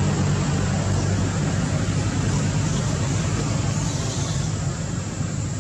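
A motor vehicle's engine running steadily: a low, even rumble under a constant hiss.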